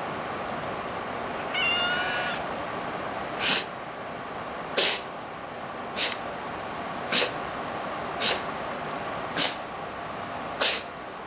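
Domestic cat coughing in a fit: a short wavering squeak, then from about three seconds in a steady run of seven short, sharp hacking coughs a little over a second apart. A symptom of cat flu, the feline upper respiratory infection.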